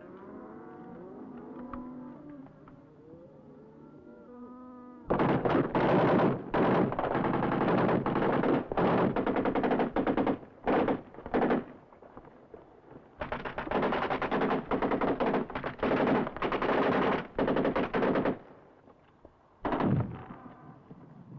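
Automatic machine-gun fire in long and short bursts of rapid shots, starting about five seconds in, with a last short burst near the end. Before the firing, softer animal calls.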